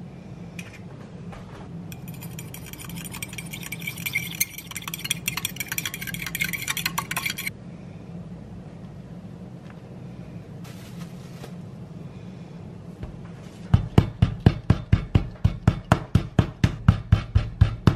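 A fork whisking an egg against a ceramic bowl, a fast clinking for several seconds. Near the end, a wooden rolling pin beats a slab of cold rough puff pastry on a granite counter, heavy thuds about three a second.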